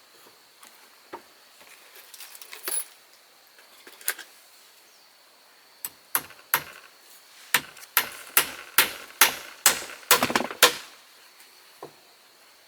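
A hand tool striking wood in a steady series of sharp blows, about two a second, after a few scattered light knocks, with a short rattle near the end of the run.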